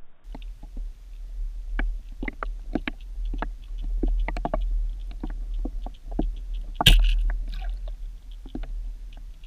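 Muffled underwater sound heard through an action camera's waterproof housing: a steady low rumble with scattered clicks and knocks, and one louder knock about seven seconds in.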